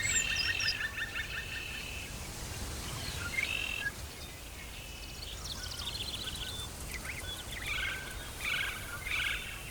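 Tropical forest ambience with several birds calling: a rapid pulsing trill for the first two seconds, then scattered chirps and, in the last few seconds, short call phrases repeated about once a second, over a low steady rumble.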